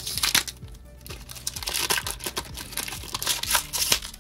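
Foil trading-card booster pack wrapper being torn open and crinkled by hand, in several bursts of crackling, over background music.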